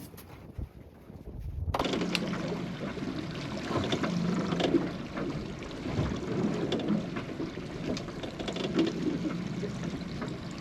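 Wind on the microphone and water noise aboard a small fishing boat at sea, with a steady low hum underneath and scattered small knocks; the sound jumps suddenly louder at about two seconds in.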